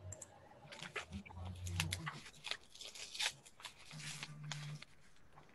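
A rapid run of crackles and clicks over an open call microphone, with a short low hum twice.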